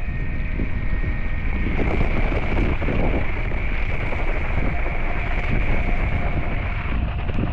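Strong wind buffeting the microphone in a steady, loud low rumble, with a faint steady high tone running underneath.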